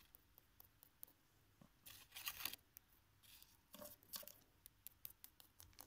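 Faint light taps and scrapes of small plastic toy figurines being walked by hand across a laminate floor, in a few short scattered clusters.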